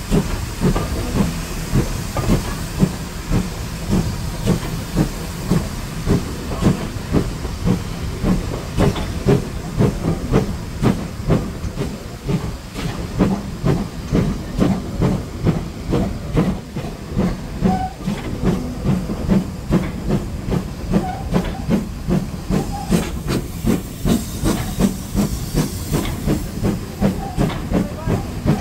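Steam locomotive chuffing at low speed, an even exhaust beat about two a second over a steady hiss of steam.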